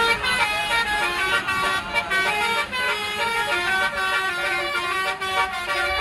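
Basuri (telolet) musical air horn playing a tune: loud horn notes stepping quickly from one pitch to the next.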